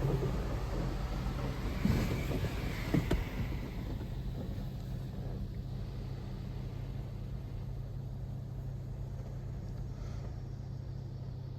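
Steady low hum and rumble of automatic car-wash machinery, heard from inside the car's cabin. In the first few seconds there is a hiss and a couple of knocks.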